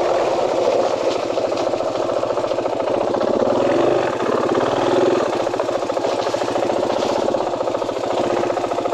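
KTM 500 dual-sport motorcycle's single-cylinder four-stroke engine running at low revs while the bike rolls slowly over a dirt and grass track, with a small rise and fall in revs about four seconds in.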